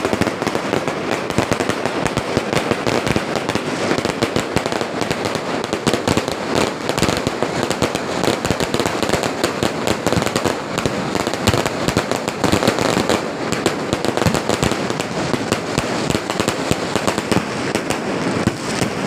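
Fireworks display in a dense barrage: rapid, overlapping bangs and crackles with no pause.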